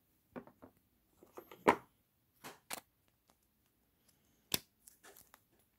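Hard plastic accessory containers and kit case being handled: a series of sharp plastic clicks and knocks, the loudest about a second and a half in.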